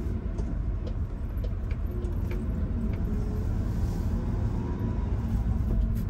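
Honda kei car's small engine running steadily, heard from inside the cabin, with a few light clicks.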